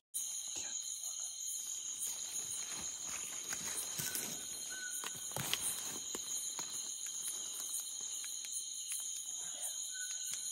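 Night insect chorus in tropical forest: a steady high trilling drone. Over it come scattered rustles and snaps of someone stepping through undergrowth, and a short high note is heard twice, once about four seconds in and once near the end.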